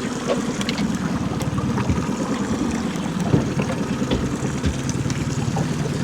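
Boat motor running steadily, a fast, even low rumble, with a few faint knocks over it.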